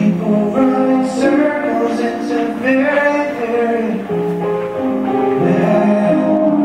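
Recorded song with a singing voice over instrumental backing, playing throughout.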